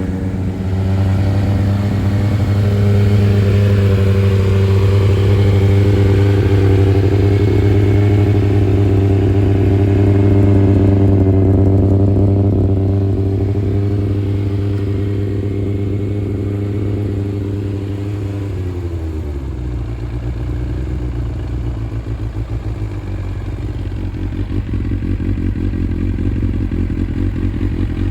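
Kawasaki ZX-9R's inline-four engine idling at a raised, steady speed, then about two-thirds of the way through the revs drop to a lower, lumpier idle.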